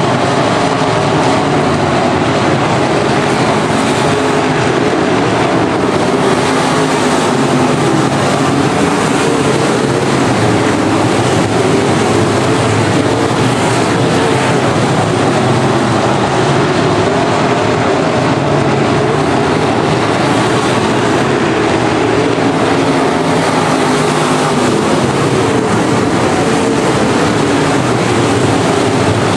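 A pack of IMCA Modified dirt-track race cars running at speed together, their V8 engines making a loud, steady, continuous drone.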